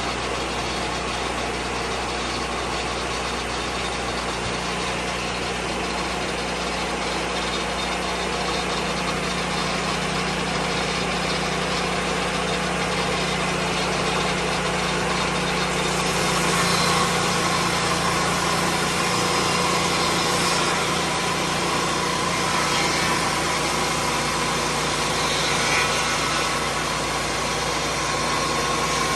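Lucas Mill 10-30 swing-blade sawmill running steadily, engine and spinning circular blade. About halfway through the sound turns brighter and a little louder.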